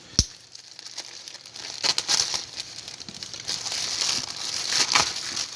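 A sharp knock just after the start, then packaging crinkling and rustling with scattered crackles as a mailed package is handled and opened.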